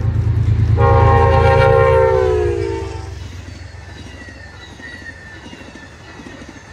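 ALCO RS32 diesel locomotive passing: a chime horn sounds one long blast about a second in that slides down in pitch as it goes by, over the heavy rumble of the diesel engine. Both fade away after about three seconds.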